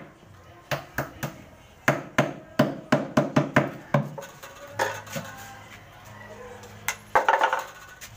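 Hammer striking a plywood subwoofer box: quick runs of sharp blows on the wood, a few a second, then a pause with a single knock or two and a last short flurry near the end.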